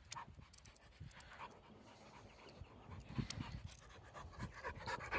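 A dog panting faintly, with scattered light clicks and a few soft thumps.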